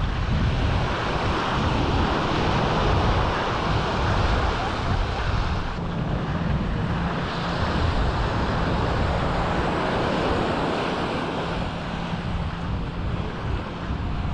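Wind buffeting the microphone over the wash of sea surf. A faint steady low hum joins about six seconds in.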